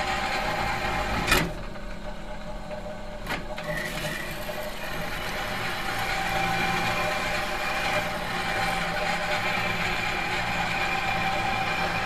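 Metal machine humming steadily, several steady tones over a low drone. A sharp click about a second in leaves it quieter, and a second, fainter click follows a couple of seconds later. The hum then gradually builds back up.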